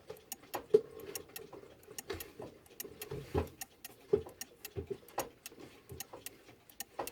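Key-wound mechanical clock ticking in a quick, even rhythm, with several dull knocks from the clock being handled.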